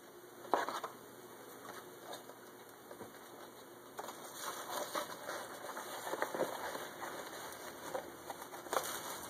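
Cardboard box and packing being handled and unwrapped: scattered taps, crinkles and rustling, busier in the second half, with a sharper click about half a second in.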